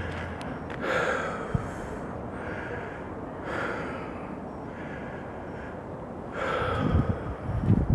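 Close, heavy breathing of the person holding the camera: slow, regular breaths, a loud one about every three seconds with fainter ones between. Low thumps on the microphone come near the end.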